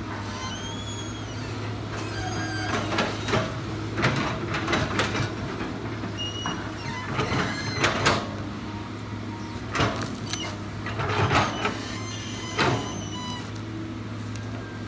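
Hydraulic crawler excavator's diesel engine running at a steady hum while its bucket digs into the dirt bank, with repeated bursts of scraping and knocking as the bucket cuts and drags the soil.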